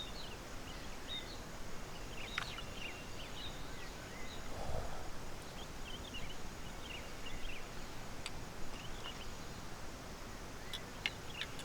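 Quiet outdoor ambience with many faint, short bird chirps scattered throughout and a few small clicks.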